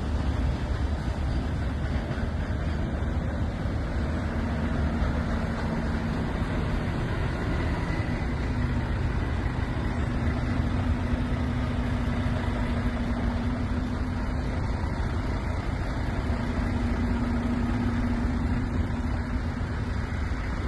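Semi truck's diesel engine running steadily, a continuous low rumble with a faint hum that wavers slightly in pitch.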